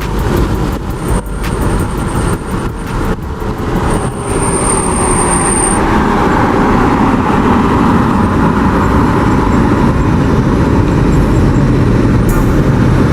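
Steady vehicle and road noise, a loud even rush that builds about four seconds in, after a few seconds of scattered clicks and knocks.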